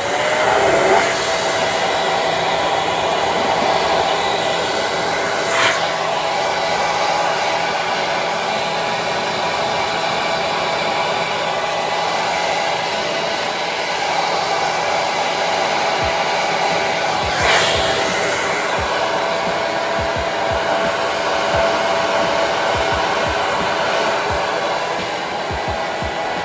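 Handheld hair dryer blowing steadily with a faint whine, drying freshly glued quick-weave tracks. Two brief bumps come about six and seventeen seconds in.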